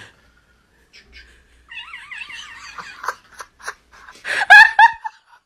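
Laughter in high, wavering bursts, loudest about four and a half seconds in.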